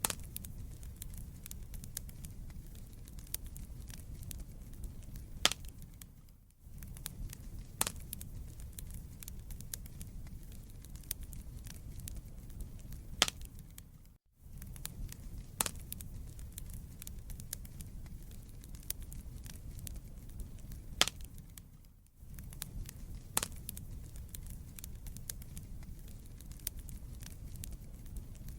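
Wood fire burning in a fireplace: a steady low rumble of flames with constant small crackles and several louder pops. The sound drops out briefly about every eight seconds.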